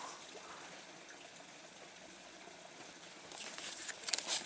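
Water trickling and splashing, with a few sharper splashes or clicks from about three seconds in.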